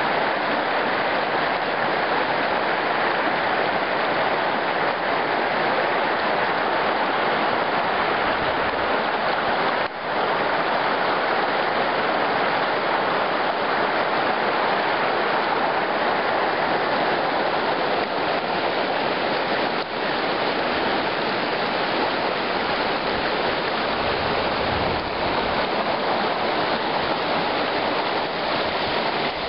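Mountain creek rushing over rock slabs in small cascades: a steady, loud rush of white water.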